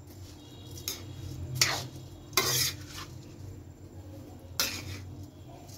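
Metal spatula scraping against a large iron kadhai as washed rice and vegetables are stirred together, several separate scrapes over a faint steady hum.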